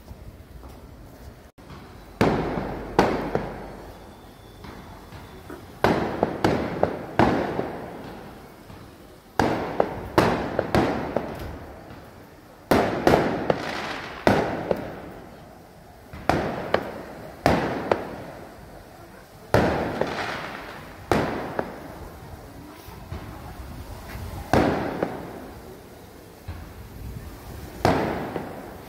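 Fireworks going off in irregular clusters of loud sharp bangs, each followed by a decaying echo.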